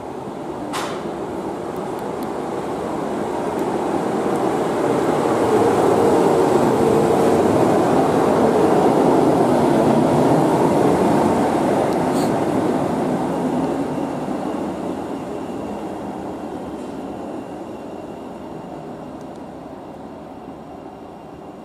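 Class 399 tram-train running past along the platform. The sound of its wheels on the rails swells as it approaches, is loudest as it passes close by, then fades as it draws away. There is a sharp click near the start and another about halfway through.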